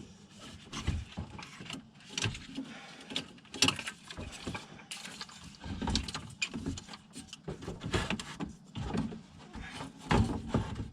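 Irregular knocks, clunks and scraping of radiator assembly parts being handled and pushed together by hand, as a piece is worked into place.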